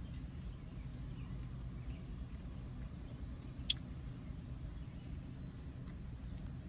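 Steady low rumble of outdoor ambience with a few faint bird chirps, a single sharp click a little past halfway, and quiet eating sounds as a sauce-dipped bite is taken.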